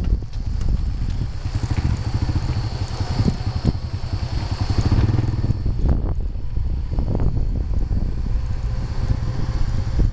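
Vehicle engine running steadily with fast, even low pulses while travelling along a road, mixed with wind buffeting the microphone and a few brief thumps.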